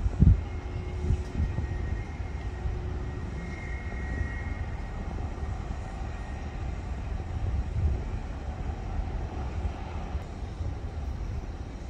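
Learjet 60XR business jet's twin turbofan engines running, a steady rumble with irregular low buffeting and a faint high whine.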